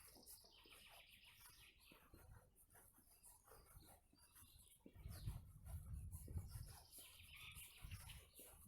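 Faint bird chirping, a short run at the start and another near the end, with a low rumble in between.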